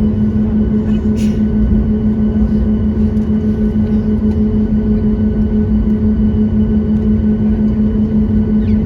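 Steady cabin hum of a Boeing 737 MAX on the ground after landing, with a strong, steady low drone and a brief hiss about a second in.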